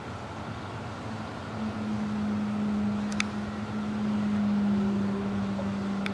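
Steady low mechanical hum of an engine running, getting a little louder about a second and a half in, over a wash of wind and outdoor noise, with one sharp click about three seconds in.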